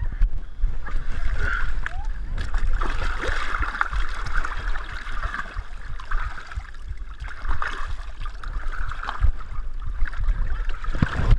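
Muddy water sloshing and gurgling as a person crawls through a mud pit, heard from a camera strapped to the crawler's chest, with dense low thumps and rubbing of the body against the camera.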